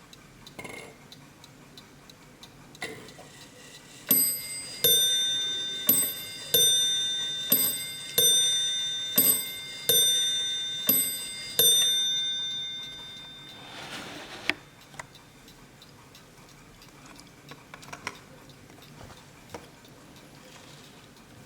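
Hermle mantel clock ticking, then striking its two bells about a dozen times over some eight seconds, the bell tones ringing on and fading before the ticking carries on alone.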